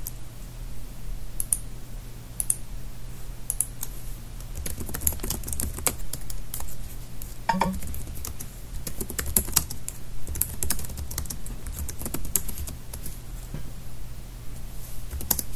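Typing on a computer keyboard: a few scattered keystrokes, then a quick run of key clicks as a terminal command is typed, over a steady low hum.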